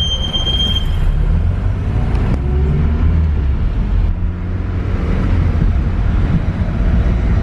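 Cabin noise inside a moving taxi: a steady low rumble of engine and road noise.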